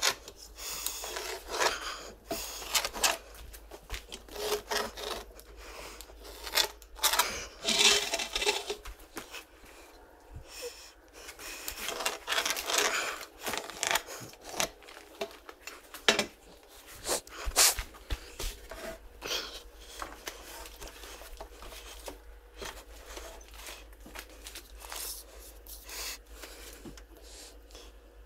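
A hand tool rubbing and scraping on rough-sawn timber in irregular strokes, louder in the first part and thinning to fainter scrapes toward the end.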